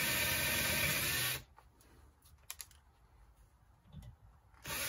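Handheld power drill boring a shallow pin-wrench hole into the metal end cap of a Volvo Penta outdrive trim-tilt hydraulic cylinder, in two short runs: the first stops about a second and a half in, and the next starts near the end.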